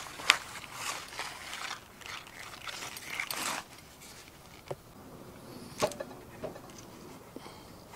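Leather sheaths and tools being handled and shifted on a canvas groundsheet: rustling and scraping with a few sharp clicks, the loudest near the start, then quieter handling near the end.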